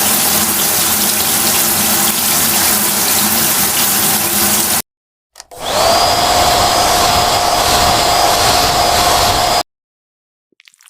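Loud steady whooshing motor noise with a low hum, cutting off suddenly about halfway. After a short gap it starts again with a whine that rises and then holds steady, before stopping suddenly near the end.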